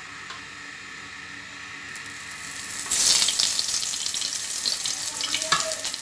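Masala-stuffed green chillies going into hot oil in a nonstick frying pan and sizzling loudly, starting suddenly about halfway in; before that only a faint steady hiss.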